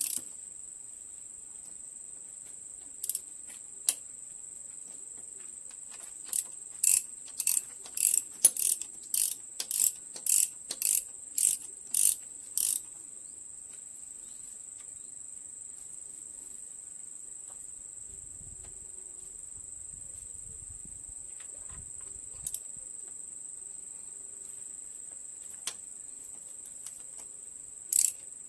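Ratchet wrench worked in short strokes on the engine, a run of quick clicking bursts about twice a second for several seconds, with a few lone clicks before and after. A steady high insect trill runs underneath.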